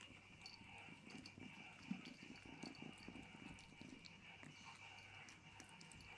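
Faint, irregular chewing and licking of a kitten eating a piece of melon, over a low steady hum.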